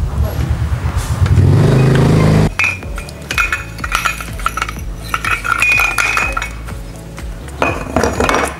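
A loud, deep buzzing hum that cuts off abruptly about two and a half seconds in, followed by light clinks over background music.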